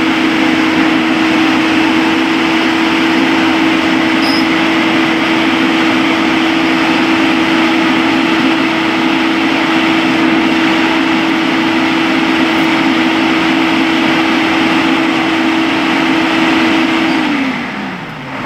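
A large engine running loud and steady at high revs with a constant drone, then winding down about seventeen seconds in as the revs drop.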